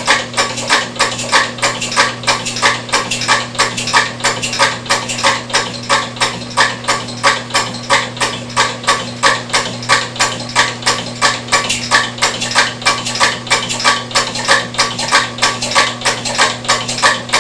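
Homemade four-stroke single-valve gasoline engine being turned over with the ignition on, its valve gear clattering noisily in a fast, even run of sharp clicks over a steady low hum. It is not running on its own; its builder reckons something is backflowing in the fuel system, so it fires only once in a while.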